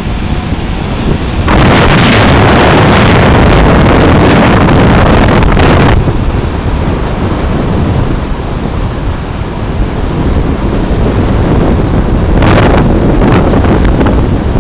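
Heavy wind buffeting the microphone while riding on top of a moving truck: a loud, rushing noise with no steady tone. It surges from about one and a half to six seconds in, eases off, and surges again briefly near the end.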